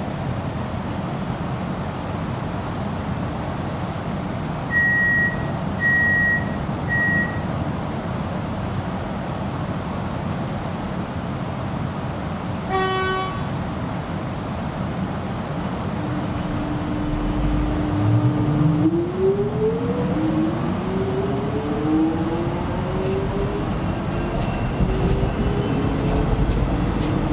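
Inside an X'trapolis 100 electric multiple unit: a steady low hum while it stands at the platform, three short door-closing warning beeps about five seconds in, and a brief toot near the middle. Then the traction motors' whine sets in as several tones rising together in steps as the train pulls away and speeds up.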